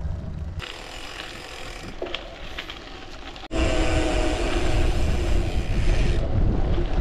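Gravel bike riding noise: tyres rolling and wind on the microphone, quieter at first, then much louder and rumbling after an abrupt cut about three and a half seconds in.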